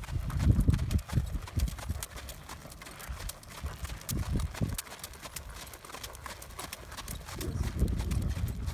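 Hoofbeats of a horse trotting on a sandy gravel arena, a steady run of dull strikes, over a low rumble that is strongest in the first second and again near the end.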